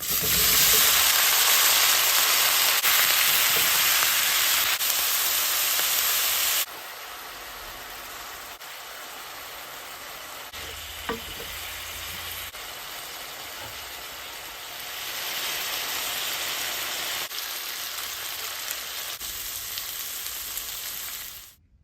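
Cauliflower frying in hot oil in a pan, a dense sizzle that is loud for the first six or seven seconds, then drops suddenly to a quieter sizzle and swells again from about fifteen seconds in. A single light knock about eleven seconds in.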